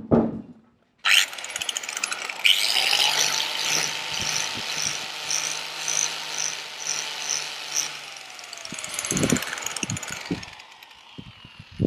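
Angle grinder with a polishing disc running, polishing metal saildrive parts. It runs steadily from about two seconds in and winds down around eight seconds, followed by a few short knocks.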